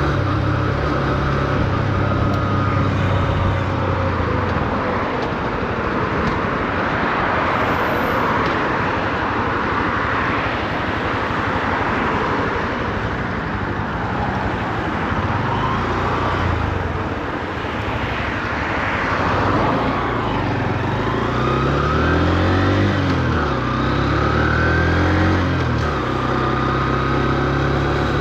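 Honda CB125F's single-cylinder engine on a city ride, kept at low revs while it is run in: a steady engine note at first, then a long stretch of wind and road noise under way. Near the end the engine climbs in pitch several times as it accelerates through the gears, then settles to a steady note.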